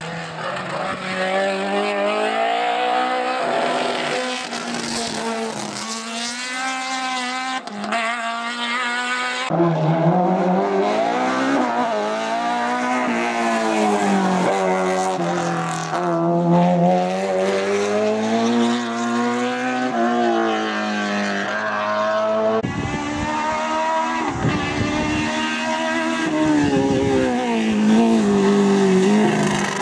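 Opel Kadett GTE hillclimb car's four-cylinder engine running hard at high revs, its note rising and falling again and again as it accelerates, shifts gear and lifts for corners. The sound changes abruptly twice, about a third of the way in and again past two-thirds.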